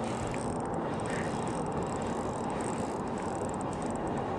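Spinning reel being wound steadily to retrieve the lure, a continuous mechanical whirr with fine gear ticking.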